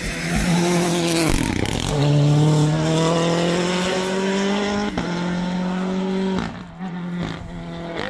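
Rally car engine accelerating hard away. Its note dips about a second in, then climbs steadily in pitch, changes gear about five seconds in, and fades into the distance after about six and a half seconds.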